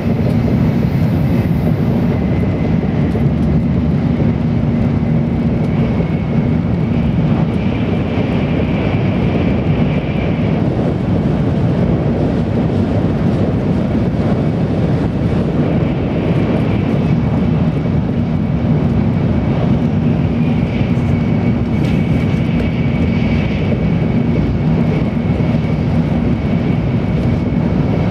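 Cabin noise inside an N700 series Shinkansen car running at speed: a steady rumble of the wheels and running gear with a low hum, and a faint high whine that swells and fades a few times.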